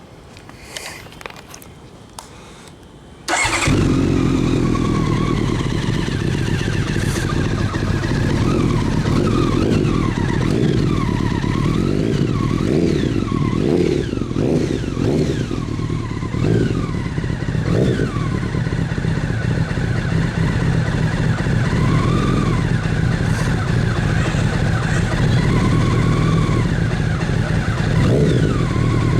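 Honda CBR1100XX Super Blackbird's inline-four motorcycle engine, quiet apart from a few clicks, then starting about three seconds in and idling steadily.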